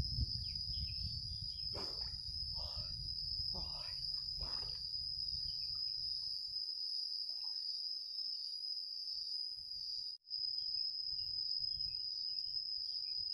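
Steady high-pitched drone of insects, crickets chirring in the countryside, holding one tone throughout with a brief break about ten seconds in. Beneath it a low rumble fills the first half and dies away.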